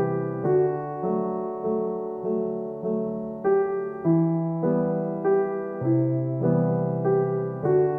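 Background music: a gentle piano piece playing steady notes about every half second over held chords.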